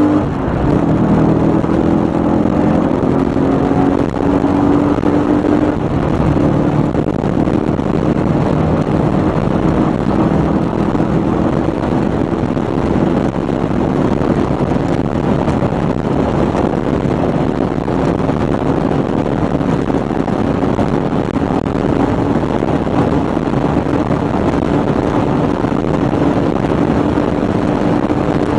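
A car accelerating hard at very high speed, heard from inside the cabin: the engine note climbs slowly in pitch over heavy wind and road noise, with a brief drop in loudness about four seconds in.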